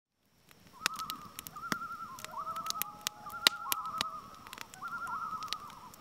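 Wavering, rapidly warbling animal calls, repeated in four or five phrases, over many sharp crackling clicks.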